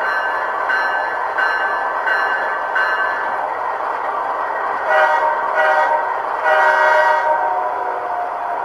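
Sound decoder of a Kato C44-9W model locomotive playing an ESU LokSound GE 7FDL-16 diesel file through the model's small speaker. The locomotive bell rings about once every 0.7 s for the first few seconds over the engine sound. Then the horn sounds two short blasts and a longer one.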